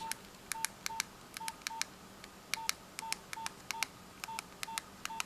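Nokia 1661 mobile phone's keypad being pressed key after key, about fifteen times at an uneven pace. Each press gives a click and a short beep at the same pitch: the keypad tones of a working phone under test.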